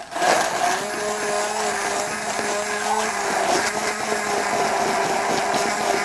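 Handheld immersion blender switching on and running steadily in a glass measuring cup, grinding giblets into strained braising liquid to make a sauce.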